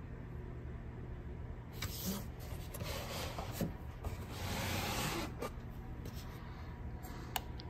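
Quiet steady low hum with a few soft rubbing and handling noises and a small click near the end, as the opened power station is handled and filmed up close.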